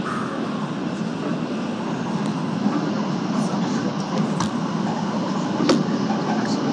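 C2 subway train running through a tunnel, heard from inside the car: a steady rumble of wheels on the rails, with a few sharp clicks around the middle and about a second before the end.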